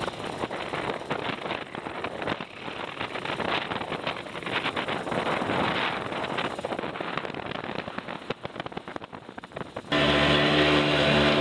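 Wind buffeting the microphone on a moving sailboat, a gusty, fluttering rush. About ten seconds in it switches abruptly to the steady hum of a small boat's outboard motor running.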